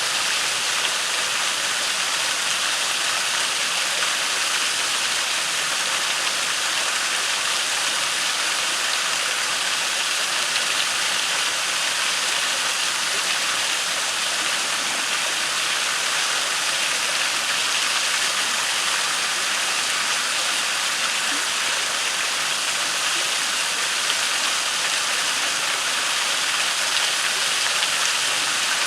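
Waterfall rushing steadily into a creek pool: an even, unbroken water noise.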